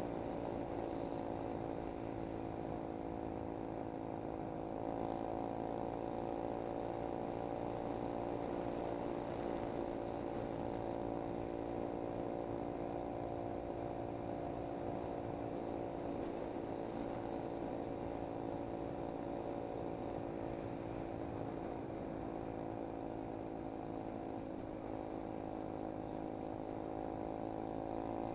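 SSR 125cc pit bike's single-cylinder four-stroke engine running steadily under way. The engine note steps up about five seconds in, then dips and rises again near the end.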